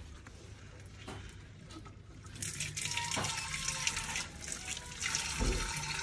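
A stream of water starts pouring into a clay water pot about two seconds in and runs steadily, splashing inside the pot. Before it starts there are only a few faint knocks of hands on the pot.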